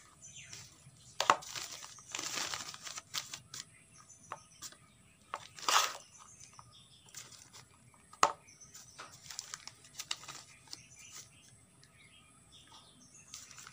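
A small hand trowel scraping and scooping a soil, cow-dung manure and sand mix from a metal basin into black polythene nursery bags: gritty scrapes, soil pouring and the plastic bags crinkling, with a few sharp clicks.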